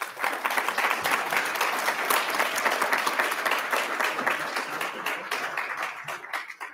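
Audience applauding: many hands clapping at once, starting suddenly and dying away near the end.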